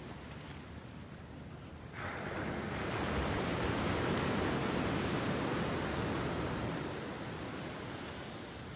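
Ocean surf: a wave breaks with a sudden rush about two seconds in, swells into a loud wash of noise, then fades away over the last couple of seconds, above a low steady hiss.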